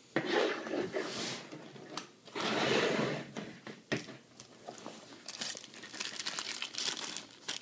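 Hands rummaging in a backpack pouch, with a long rustle two to three seconds in, then a clear plastic bag crinkling in the hand with a run of sharp crackles toward the end.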